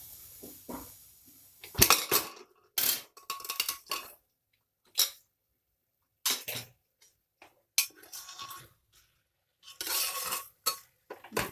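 The last of a pressure cooker's steam hiss dies away in the first second as the whistle weight is held up with a steel spoon. Then come irregular metal clanks and clinks as the cooker lid is worked off and a spoon knocks against the pot.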